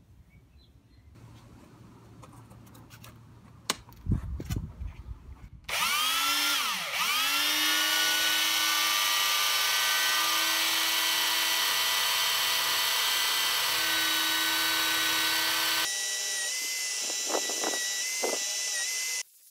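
A few knocks from handling, then an electric power tool clamped in a workbench starts up, and its wire wheel brush spins up to speed with a wavering rise before settling into a steady high whine. Near the end a rusty steel claw hammer head is held against the spinning wire wheel, adding a few short scraping sounds to clean off the rust.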